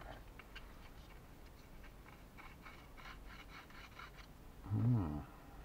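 Light clicks and taps of small laser-cut plywood kit pieces being handled and fitted together, with a quick run of clicks in the middle. About five seconds in, a short hummed 'mm' from a man, its pitch rising then falling, is the loudest sound.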